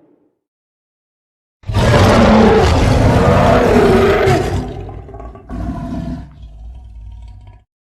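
King Kong film sound effect: a giant ape's loud roar starts about a second and a half in, runs for about three seconds and fades. A shorter, quieter growl follows, with a steadier pitched tail, and cuts off near the end.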